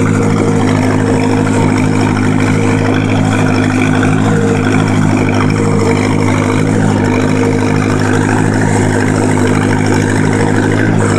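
1949 Massey-Harris 22 tractor's four-cylinder gasoline engine running steadily at low speed while the tractor is driven, with an even, regular beat.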